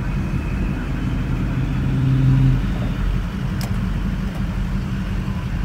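2004 Duramax LLY 6.6-litre turbo-diesel V8 with a 5-inch exhaust, heard from inside the cab, running as the truck drives on beach sand in four-wheel drive. The engine note swells for about a second in the middle.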